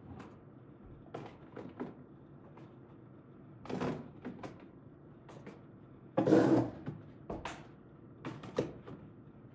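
A series of knocks and clunks as containers and fridge drawers or shelves are handled and set in place while a refrigerator is reorganised. The loudest is a heavier clunk about six seconds in, with lighter clicks before and after it.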